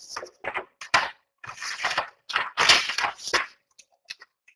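A series of rustling, crunching scrapes close to the microphone, then a few light clicks near the end.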